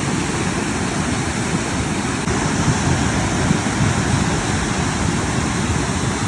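Floodwater rushing in a swollen torrent: a loud, steady noise of churning water with no letup.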